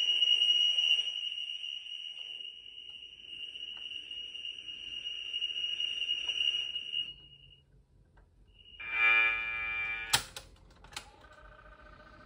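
Commodore VIC-20 cassette data played aloud through a Texas Instruments PHP 2700 program recorder's speaker, sounding okay: first the tape's leader, a steady high whistle with overtones lasting about seven seconds. After a short gap comes a buzzy tone full of overtones, then a loud click about ten seconds in and a lower steady tone near the end.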